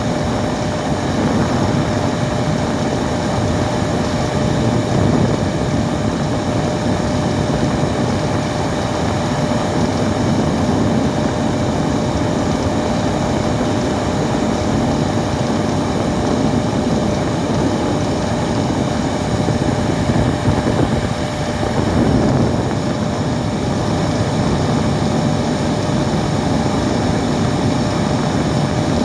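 Vacuum cleaner running steadily: a constant rushing motor noise with a steady whine through it.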